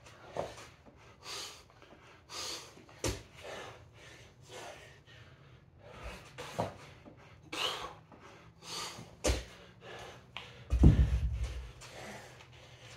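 A man breathing hard from exertion, loud gasping breaths about once a second, with a few sharp knocks on the gym floor and one heavy low thud near the end.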